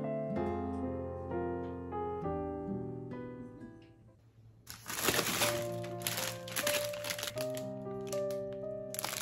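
Gentle background piano music that fades almost to nothing about four seconds in, then returns; from about five seconds in, plastic packaging crinkles loudly and repeatedly as a bagged loaf is handled.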